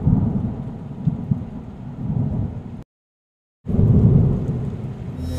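Thunder rumbling with rain, a sound effect under an intro card. It comes in loud and fades, cuts off abruptly for most of a second, then starts again loud and fades once more.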